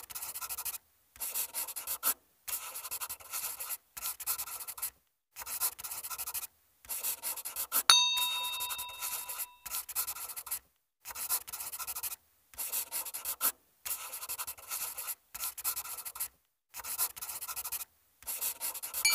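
Marker-pen writing sound effect: repeated short bursts of felt-tip scratching, each about a second long with brief silent gaps. A single ringing bell ding sounds about eight seconds in and fades out over a second or so.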